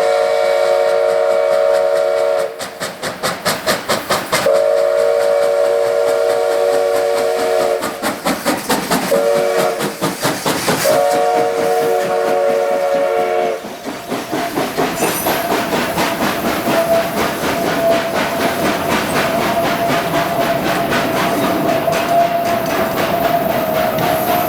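A locomotive whistle sounds a chord of several notes in a long, long, short, long pattern, the grade-crossing signal, over a steady rapid rhythmic clatter from the slowly climbing train. After about 14 seconds the whistle stops, and a thin steady squeal runs over the train's running noise.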